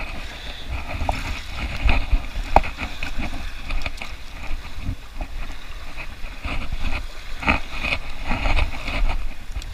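Wind rumbling on an action camera's microphone over small waves lapping at a rocky shore, with scattered clicks and knocks from handling a spinning rod and reel.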